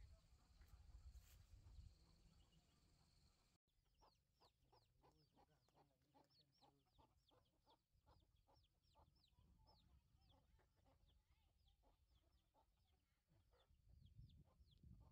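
Faint chicks peeping in short, falling chirps, several a second, with a hen clucking low among them. The peeping starts suddenly about four seconds in; before that there is only a faint low rumble.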